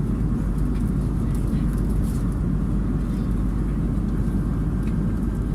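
Steady low rumble of the cabin noise inside an Airbus A330-300 airliner, with a few faint clicks.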